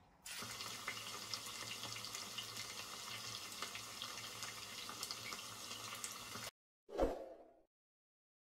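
Egg sizzling and crackling in a hot frying pan, starting just as it is poured in and cutting off abruptly after about six seconds. A single short thump follows about half a second later.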